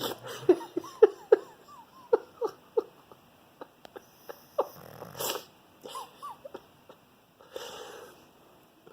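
Pug snoring in its sleep: a run of short, squeaky whistling sounds, about three a second, then sparser squeaks and a couple of louder rasping breaths. Such airway noises are typical of a pug's short, flat muzzle.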